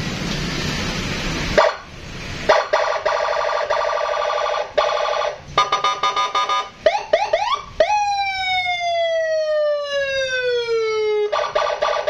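Aftermarket Senken electronic siren on a Yamaha NMAX scooter, switched through its tones from a handlebar button pad. After a short hiss at the start it gives a fast warbling chirp, then a few quick rising whoops, then a long falling wail about eight seconds in, and the fast warble again near the end.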